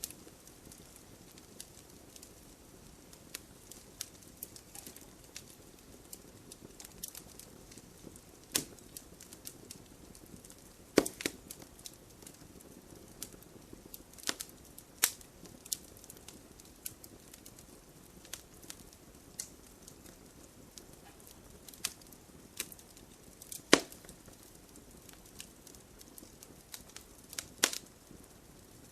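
Wood campfire crackling: a soft hiss with irregular small crackles and a handful of sharper, louder pops scattered through it.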